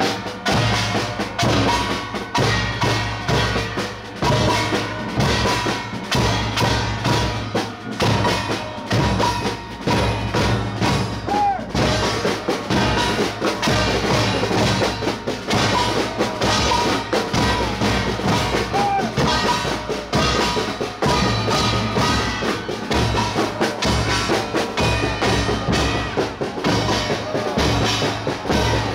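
Music with drums and quick, dense percussion over a steady bass.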